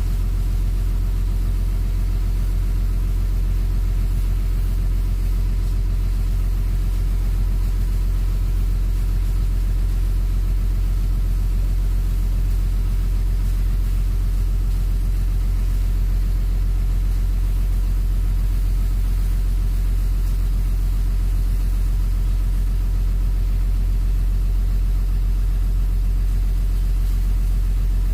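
Sunward excavator's diesel engine running steadily at constant speed, a deep even drone.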